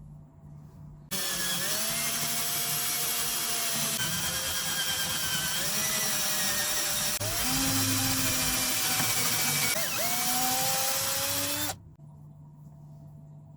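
Electric drill running under load for about ten seconds, starting and stopping abruptly; its pitch sags and recovers several times as the bit bites.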